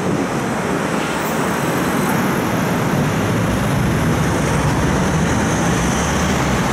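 Tram running noise heard from inside the car as it pulls away from a stop and gathers speed, a steady rumble that grows louder and deeper, with road traffic alongside.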